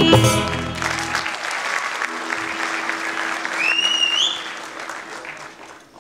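A live band's last notes of the song cutting off about a second in, followed by audience applause that gradually fades out. A short rising whistle sounds near the middle of the clapping.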